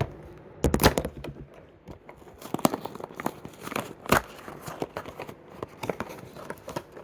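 A Hot Wheels multi-pack's packaging being torn open by hand: irregular tearing, crinkling and sharp cracking of cardboard and plastic. There is a dense run of cracks about a second in and a loud crack about four seconds in.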